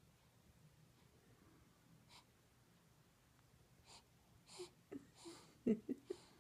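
A sleeping newborn baby making noises in his sleep: a few short snuffly breaths and snorts, then small squeaks and grunts near the end.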